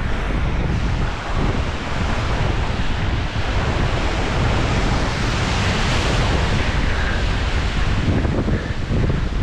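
Sea surf washing and breaking over rocks, mixed with strong wind buffeting the microphone as a low rumble. The wash swells about halfway through.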